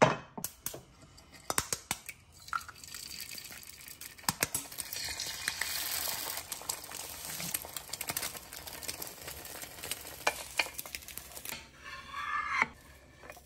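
Eggs frying in a hot nonstick four-cup egg pan, with a sizzle that swells in the middle. Scattered sharp clicks and knocks run through it.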